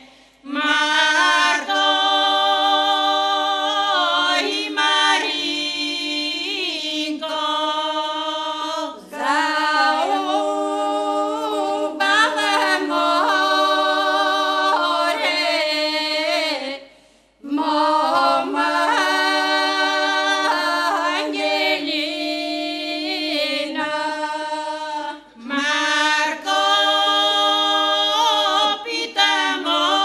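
A group of elderly women singing a Bulgarian village folk song a cappella, with a steady held low drone under a moving melody. The singing comes in long phrases, broken by short pauses for breath about every eight seconds.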